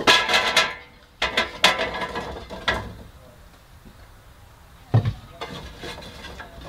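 Cut raw potato fries tumbling from a bowl into an air fryer basket: a burst of rattling clatter, a few more clatters over the next couple of seconds, then a single dull knock about five seconds in.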